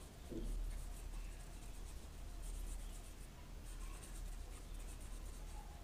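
Faint, irregular scratching of a paintbrush stroking paint onto paper, over a low steady hum.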